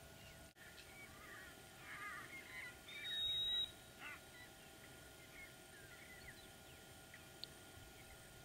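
Faint, scattered bird chirps and calls, with one short, steady, high whistle note about three seconds in that is the loudest sound.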